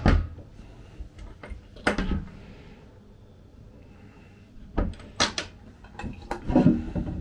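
Wooden galley cupboard doors and locker lids on a sailboat being opened and shut: scattered knocks and clicks, busiest from about five to seven seconds in.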